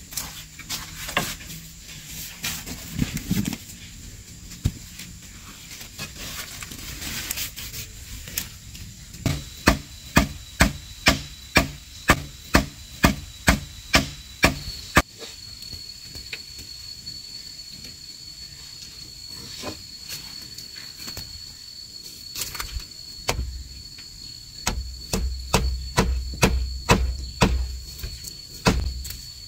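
Wooden club striking wood and bamboo in two runs of sharp knocks, about two a second, with scattered single knocks in between; the later run is a wooden club hammering a wooden peg into a bamboo wall. A steady high whine runs behind the knocks.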